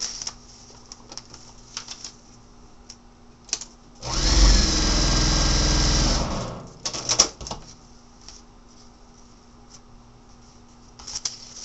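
Electric sewing machine stitching one short seam through fabric and a paper foundation, about three seconds long: it speeds up quickly, runs steadily, then slows to a stop. Light rustling and clicking of paper and fabric being handled comes before and after.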